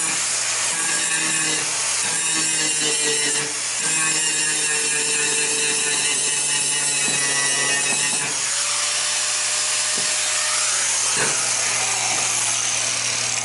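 A handheld power tool running steadily, with a brief dip in its sound about three and a half seconds in and a change in its note a little past the middle.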